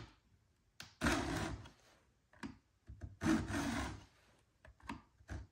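Stihl 2-in-1 chain sharpener's files rasping across a chainsaw cutter tooth and its depth gauge in two strokes, each under a second and a couple of seconds apart, with a few light clicks between them.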